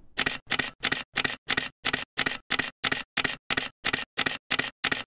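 Camera shutter firing over and over in a rapid, even run of about three clicks a second, which stops suddenly at the end.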